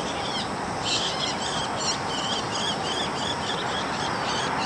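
A bird chirping in a quick series of short high calls, about three a second, starting about a second in, over a steady rushing background noise.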